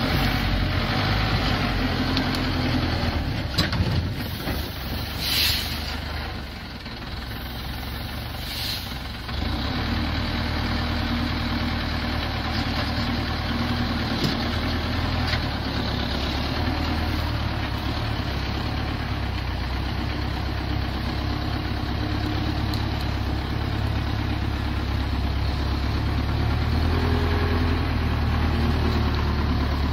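Engine of a ZIL-131 six-wheel-drive logging truck running steadily, with a few sharp clicks in the first ten seconds. The engine dips briefly, then runs on louder and more evenly.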